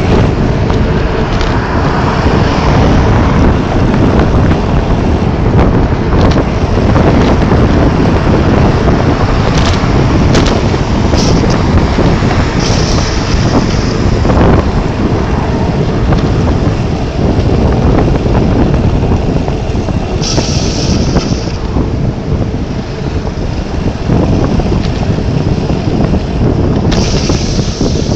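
Strong gusty wind blasting the microphone in a snowstorm: a loud, continuous rumble, with short higher hissing gusts a few times.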